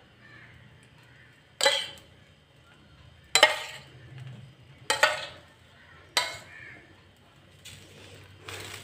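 Steel spoon clinking against a stainless steel bowl while beaten egg is spooned out of it: four sharp, ringing clinks about a second and a half apart, then a fainter one near the end.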